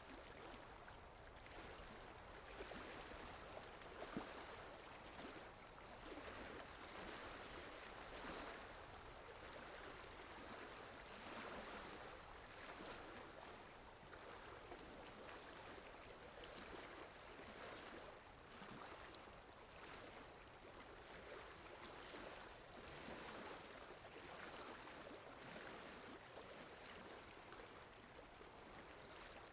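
Soft, steady rainfall, a continuous hiss of falling rain with small scattered patters.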